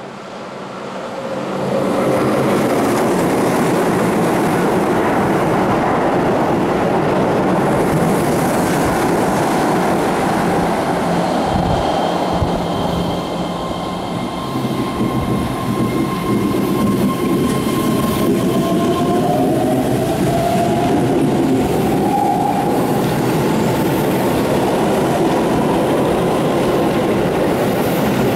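A Keihan 8000 series electric train passing through the station at speed, its wheels running loudly on the rails. It is followed by a Keihan 13000 series electric train pulling away, with a whine that rises in pitch as it gathers speed.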